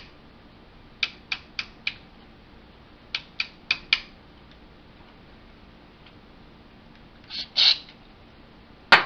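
The slide-type cartridge-load selector switch of a Marantz 3650 preamp being clicked through its four positions, twice in a row, four sharp clicks each time, working freshly sprayed contact cleaner into corroded contacts. Near the end come two short hisses of a contact-cleaner spray can, then one loud click.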